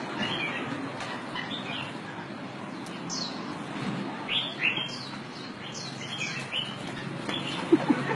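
Birds chirping: short high chirps, each falling in pitch, come at irregular intervals over a steady background hiss.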